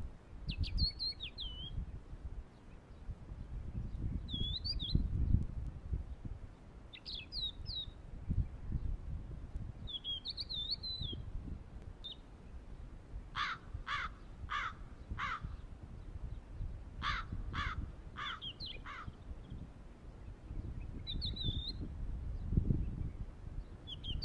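Birds calling: short, wavering high chirps every second or two, with two runs of four sharper, evenly spaced calls near the middle. A low, gusty rumble of wind on the microphone runs underneath.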